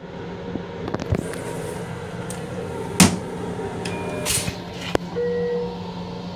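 Steady hum of a moving M7 commuter rail car heard from inside its restroom, as the plastic toilet seat is handled and raised. A few light clicks come about a second in, then one sharp knock about three seconds in. Two short tones follow near the end, a high one and then a lower one.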